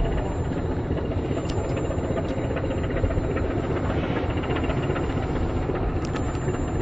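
DG class English Electric diesel-electric locomotive running steadily as it hauls a passenger train, a continuous engine rumble.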